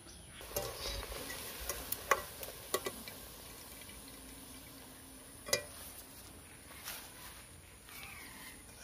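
Oil sizzling in a steel kadai as fried semolina pitha are lifted out with a wire-mesh skimmer, with several sharp metal clinks of the skimmer against the pan.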